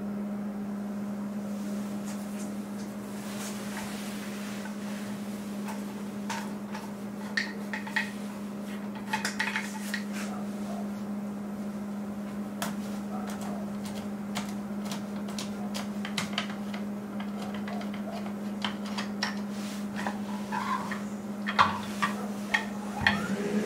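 Scattered light metallic clicks and clinks as the parts of a Benelli Argo E rifle are handled and its fore-end cap is unscrewed, over a steady low hum. The sharpest clicks come near the end.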